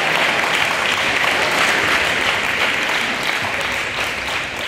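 A large audience of students applauding, with dense, even clapping that begins to die away near the end.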